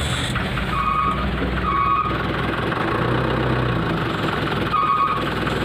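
Heavy truck engine running while the truck reverses into a tight spot, its reversing alarm beeping twice about a second in and twice more near the end.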